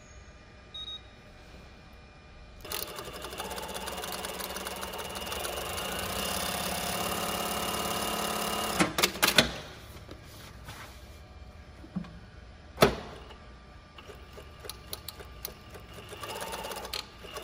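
Brother Z-8560A-431 direct-drive zigzag industrial sewing machine: two short beeps from its control panel, then it sews at speed for about six seconds, growing slightly louder, and stops with a quick run of sharp clacks. A single loud clack follows a few seconds later, then light clicking as the handwheel is turned by hand.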